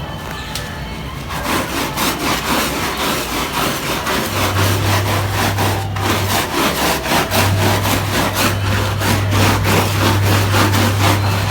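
A brush scrubbing a soaked carpet in rapid back-and-forth strokes. A steady low hum starts about four seconds in, breaks off briefly and then resumes.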